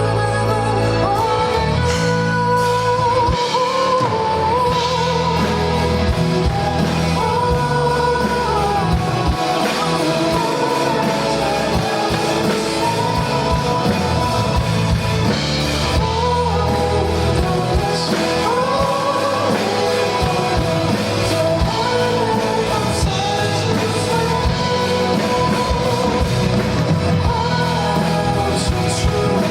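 Live pop ballad performance: a male singer's voice over a band with bass and guitar, recorded from the audience.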